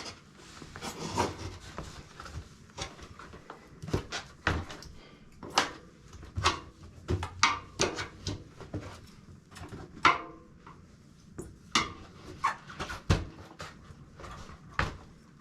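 Fat-bike tire being worked off its rim by hand with tire levers: irregular scrapes of rubber on the rim with scattered clicks and knocks, a sharper knock about ten seconds in.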